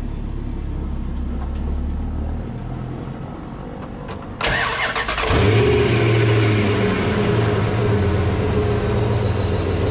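Dodge Ram 1500 engine cranked by the starter about four and a half seconds in, catching within a second and settling into a steady idle. The accessory belt drive runs without the whining, chiming bearing noise, now that the worn idler pulley has been replaced.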